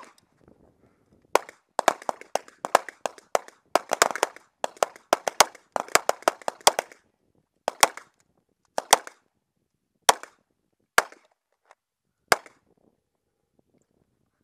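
Glock 19 9mm pistol firing: a single shot, then a fast string of shots, slowing to single shots about a second apart near the end.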